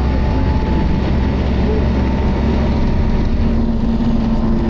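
Optare Solo bus under way, heard on board: a steady drone of engine, Allison automatic gearbox and road noise, with a thin steady whine over it. A deeper tone comes in about three seconds in.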